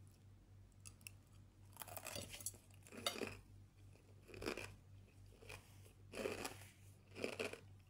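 A person chewing crunchy fried bread cubes (croutons) in a salad: a run of crisp crunches, about five of them roughly a second apart.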